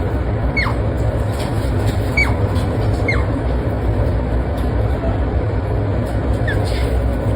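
An otter's short, high squeaking calls, each falling sharply in pitch, heard four times a second or more apart over a steady low rumble.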